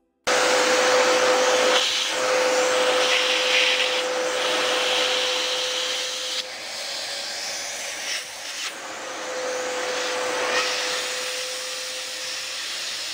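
Vacuum cleaner switching on and running, its hose nozzle held over a small speaker driver to suck the dented dust cap back out. The steady rush and hum changes several times as the nozzle is pressed onto and moved around the speaker.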